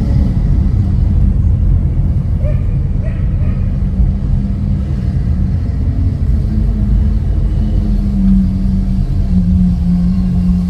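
Car driving at a steady pace: low engine and road rumble, with a steady engine drone coming in about six seconds in.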